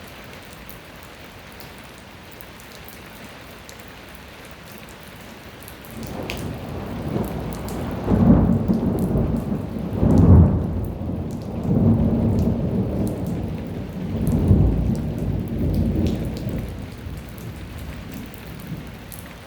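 Light rain falling steadily, with a long roll of thunder that starts about six seconds in, rumbles in several swells and fades out near the end.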